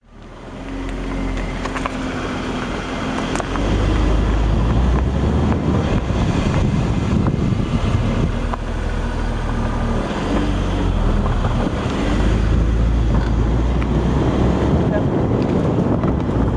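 BMW Z4 being driven: engine and tyre noise with wind buffeting a camera mounted low on the car's side. The low rumble swells about four seconds in and again near twelve seconds.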